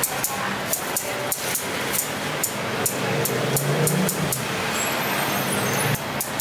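Metal tongs and scissors clicking and snipping in a stainless-steel tray of beef offal, two or three clicks a second. Underneath is a steady low engine hum that stops about six seconds in.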